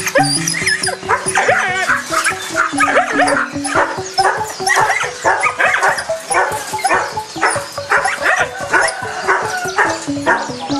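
Caged puppies yipping and barking, many short calls in quick succession, over background music with a repeating bass line.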